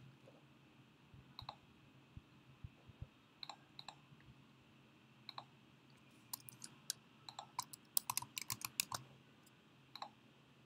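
Faint computer keyboard and mouse clicks while copying and pasting text: a few scattered single clicks, then a quick flurry of clicks from about six to nine seconds in.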